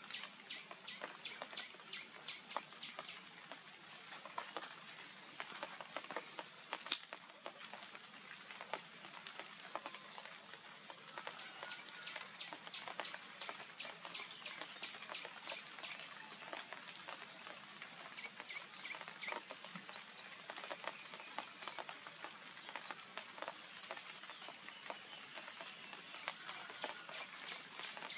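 An insect chirping: a short high-pitched pulse repeated about four times a second, pausing for a few seconds near the middle, over a dense scatter of faint ticks and clicks.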